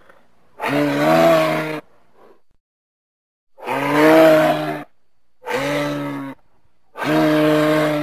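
Imagined giant ground sloth (Megatherium) call made from mixed library animal and monster sounds: four low, drawn-out calls, each about a second long, with short gaps between them.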